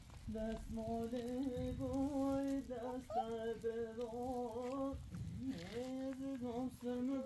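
A person humming in long, held notes, with a short break about five seconds in before the humming resumes.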